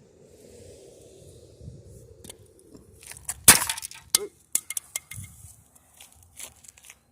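A small electric motor being forced open: a faint scraping, then about three and a half seconds in a loud sharp crack as the casing gives, followed by a run of small clicks and clinks.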